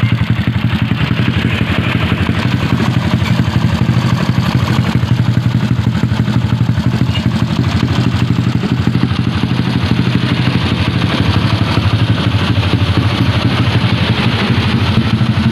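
Yamaha automatic scooter's single-cylinder engine idling steadily through a newly fitted aftermarket C2 racing exhaust, with an even, rapid exhaust pulse during a sound check of the new pipe.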